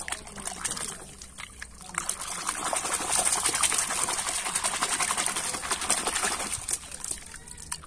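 Water splashing and sloshing in a plastic bucket as a hand scrubs a muddy toy vehicle around in it. The splashing builds about two seconds in, is heaviest in the middle, and eases off near the end.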